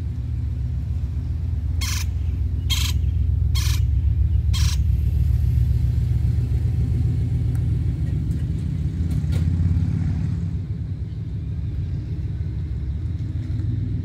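A loud, fluctuating low rumble that swells through the middle and eases off near the end. Four short hissing bursts, about a second apart, come a couple of seconds in.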